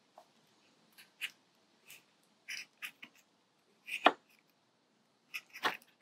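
A pen point being pushed through a paper plate covered in clear packing tape: scattered small crinkles and clicks, with one sharper pop about four seconds in.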